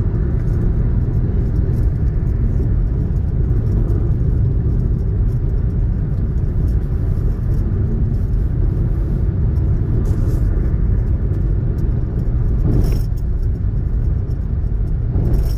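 Steady low rumble of road and tyre noise inside a Hyundai i20's cabin, cruising on a concrete expressway, with a couple of brief thumps in the second half.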